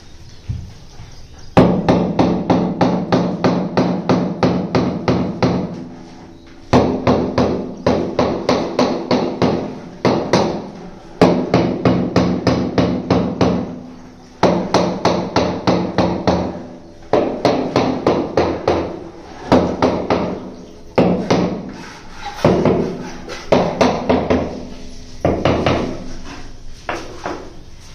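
Hammer tapping a large polished black stone floor tile to bed it down and level it in fresh mortar. The taps come in quick runs of about five a second, a dozen or so runs with short pauses between, and the slab rings with a low note under each run.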